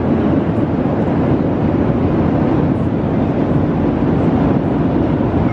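Airliner cabin noise heard from a passenger seat: a loud, steady rush of engine and airflow noise, heaviest in the low end, with no breaks.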